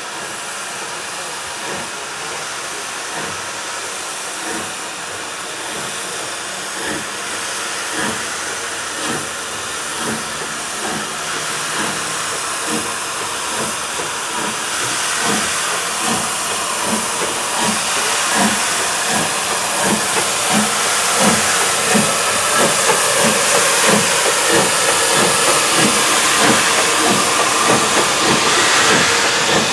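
LMS Fowler 4F 0-6-0 steam locomotive 44422 working a train past at low speed, with its exhaust beats coming faster and louder as it nears and passes, over a steady hiss of steam.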